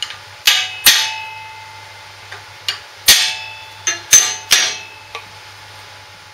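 Hammer blows on a steel drift, gently tapping ball-bearing races into a Lister D engine's crankshaft housing: about eight sharp, ringing metallic strikes, two about half a second apart near the start, then a run of them from about three to five seconds in.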